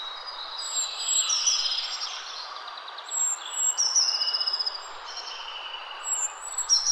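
Several birds chirping and whistling, with a rapid high trill that recurs about every three seconds, over a steady outdoor hiss.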